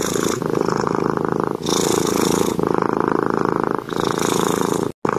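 Cat purring close up, a fast steady rattle that alternates in phases about a second long, as with each breath in and out. The sound drops out for an instant near the end.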